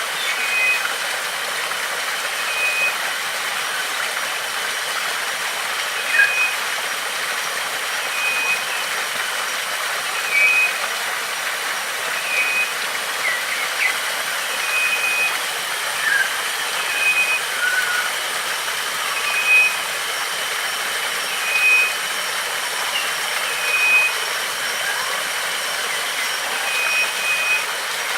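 Water rushing steadily, as from a waterfall or fast stream, with a bird repeating a short, flat whistled note about every two seconds. A few brief chirps come in between.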